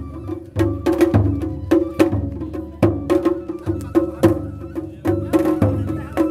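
Festival float drumming on Japanese taiko: deep strokes on a large barrel drum under quick, sharp strikes on small rope-tensioned shime-daiko, in a fast, uneven rhythm.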